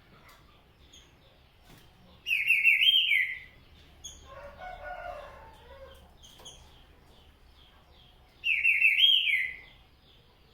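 Green-winged saltator (trinca-ferro) singing two short, loud, rapid phrases, one a little over two seconds in and one near the end. Between them a rooster crows faintly in the background, and other small birds chirp softly throughout.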